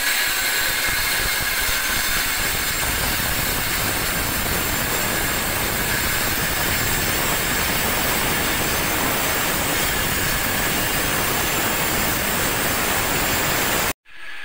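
Power tool running continuously against the tiled kitchen wall, tearing into the tile and masonry, with a loud, steady grinding noise. It cuts off abruptly near the end.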